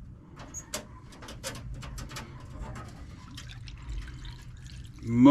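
Cleaning solution dripping and splashing back into an ultrasonic cleaner's tank as a carburetor body is lifted out of it: a string of irregular drips.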